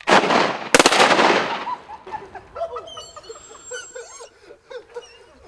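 Two shotgun blasts close together, the second about three-quarters of a second after the first, their echo fading over the next second.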